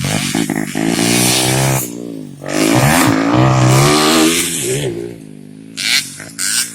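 Racing motorcycle engines at high revs passing close by: two long loud passes whose pitch rises and then falls as each goes by, then a few short sharp revs near the end.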